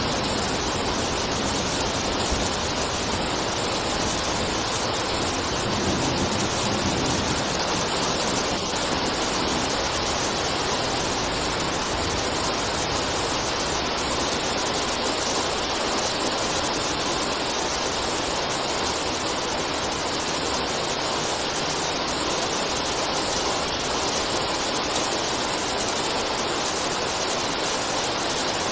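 Steady, even rainfall hiss. A low rumble underneath dies away over the first several seconds.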